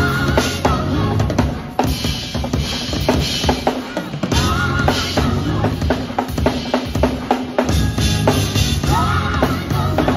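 Yamaha drum kit played live in a busy groove: dense bass drum, snare and cymbal hits over sustained low bass notes from the band.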